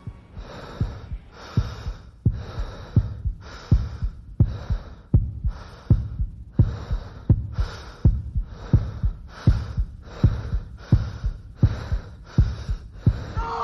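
Heartbeat sound effect: steady low thuds, a little under one and a half beats a second, with a hiss that pulses along with them.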